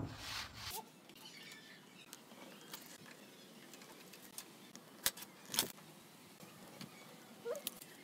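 Light handling sounds of hand tools on a pine panel: scattered clicks and taps, with two sharper clicks about five seconds in and a short squeak near the end, over quiet workshop background.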